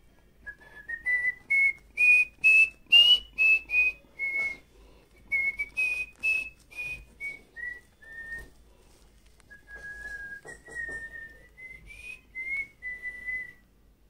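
A person whistling a slow melody, one clear note after another in three phrases: the first climbs and then falls back, the second ends low, and the third follows a short pause with breathy air on each note.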